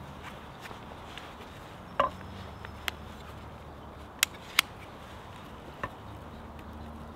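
Scattered wooden knocks and sharp clicks of hand tools and a hazel pole being handled against a log, the loudest knock about two seconds in. Two sharp clicks close together a little past four seconds come as a folding pruning saw is opened.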